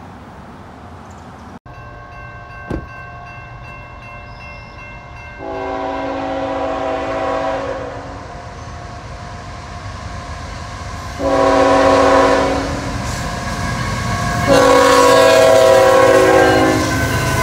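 CSX diesel freight locomotive sounding its horn for a grade crossing: three long chord blasts, the last the loudest. The engine rumble and the crossing bell's steady ringing run underneath as the train draws up to the crossing.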